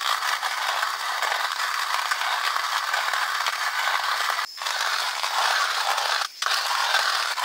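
Wood campfire crackling and hissing steadily, cutting out briefly twice.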